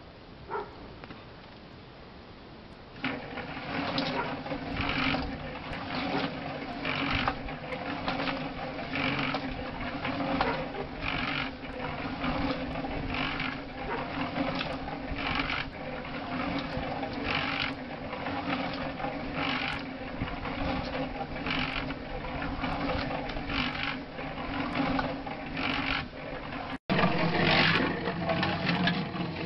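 Small cement mixer switching on about three seconds in and running, its drum churning a wet mud and straw mix for cob. A steady mechanical hum with a swishing surge about once a second as the load tumbles, louder near the end.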